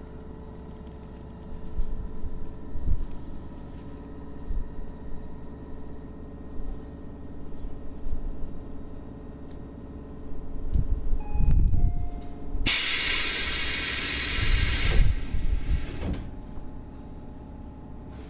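Tobu 8000 series electric train humming steadily with a few low knocks, then a brief falling two-step tone and a loud hiss of compressed air released from the train's pneumatic system for about three seconds, with low thumps under it.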